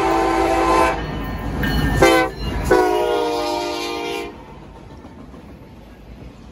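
Norfolk Southern SD70ACe diesel locomotive's air horn sounding a chord for a grade crossing: the end of a long blast, a short blast about two seconds in, then a long blast that cuts off about four seconds in, the closing short-and-long of the crossing signal, over the low rumble of the diesel engines. After the horn stops, the train rolls past with a lower, even rumble.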